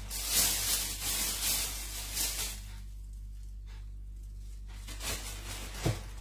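Plastic bag rustling and crinkling in uneven bursts as hands sort harvested chili leaves in it, quieter after about two and a half seconds, with a short knock near the end. A steady low hum runs underneath.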